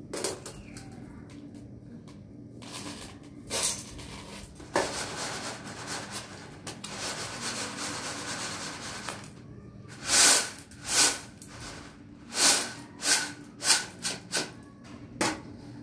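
Grain being swirled and shaken on a large metal tray to clean it: a steady rustle of grains sliding across the metal for a few seconds, then a series of short, loud swishes as the tray is jerked back and forth.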